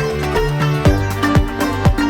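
Electronic music with sustained bass notes; a steady kick-drum beat comes in about a second in, about two beats a second.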